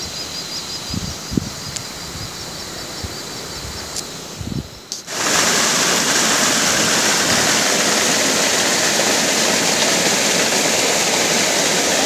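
A quieter stretch with a faint, fast high chirping and a few low thumps. About five seconds in, the sound cuts abruptly to the steady, loud rush of a shallow, foaming stream.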